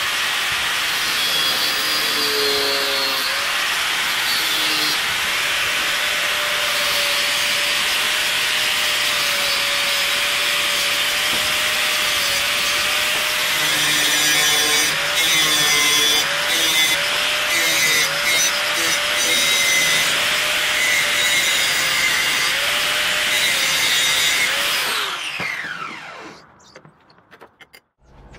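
Angle grinder grinding down a rusty steel hatchet head, its motor whine wavering as the disc bites. Near the end it is switched off and the whine falls as the disc spins down.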